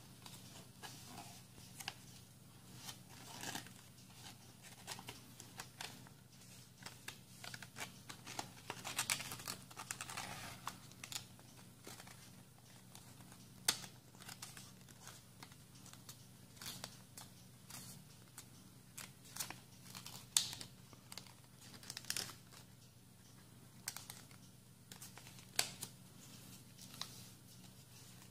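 A square of origami paper being folded and creased by hand: irregular rustling and crinkling, a longer rustle about nine seconds in, and occasional sharp clicks as creases are pressed down, over a faint low hum.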